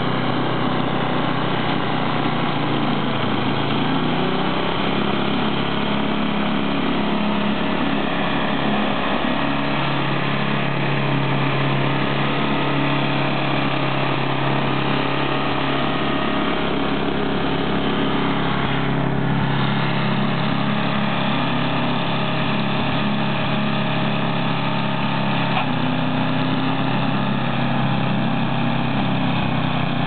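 Gas-engine two-stage snowblower running steadily while it clears snow, its engine note shifting now and then as the load changes.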